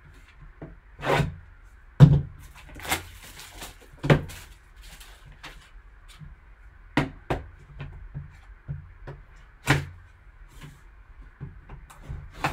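Sealed, shrink-wrapped cardboard card box handled on a tabletop: a series of knocks and thumps as it is turned over and set down, with some rustling of the plastic wrap a few seconds in.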